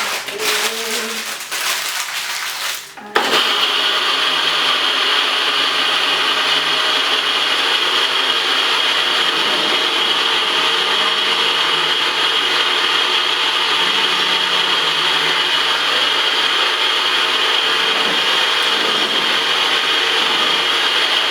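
Electric kitchen blender grinding dry oats into a powder. The motor runs unevenly for about three seconds, then jumps suddenly to a louder, steady run that holds.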